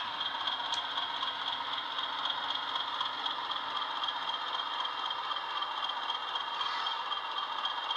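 DCC sound decoder in a Bachmann Class 20/3 model locomotive playing the Class 20's English Electric diesel engine running steadily under way, with a steady high whistle over the engine noise. It sounds thin, with no bass, as it comes through the model's small built-in speakers.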